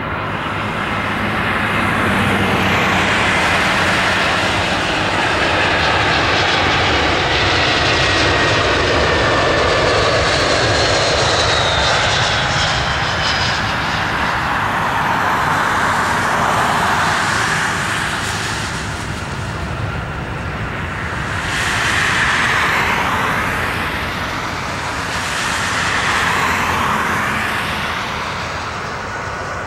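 Airbus A320 jet airliner landing, its twin IAE V2500 turbofan engines passing close with a high whine that falls in pitch over the steady rumble. Later in the rollout the jet noise swells twice.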